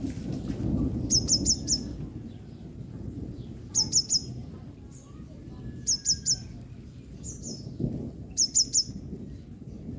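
Yellow-bellied sunbird calling: four quick bursts of three or four sharp, high chips each, spaced a couple of seconds apart.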